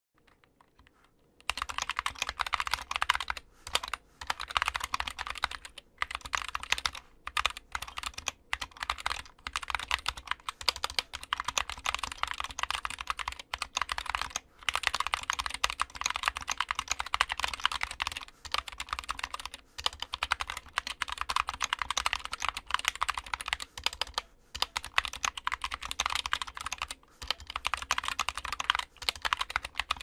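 Fast typing on a mechanical keyboard with Gateron Optical Brown tactile switches, spring-swapped and filmed. A rapid, continuous clatter of keystrokes starts about a second and a half in, with short pauses every few seconds.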